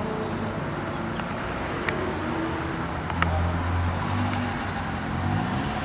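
Road traffic: a motor vehicle's engine hum that swells about three seconds in and rises in pitch near the end, with a few sharp clicks.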